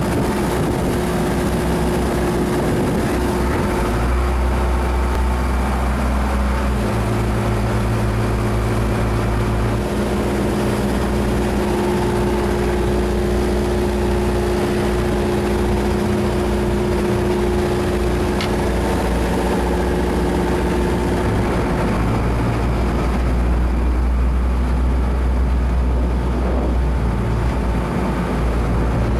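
Ship's engines running steadily under way: a low drone with several steady hums above it, the deepest rumble swelling twice.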